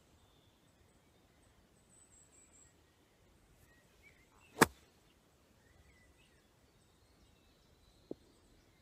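A 60-degree wedge striking a golf ball on a short chip shot: one sharp click about halfway through. A much softer tap follows near the end.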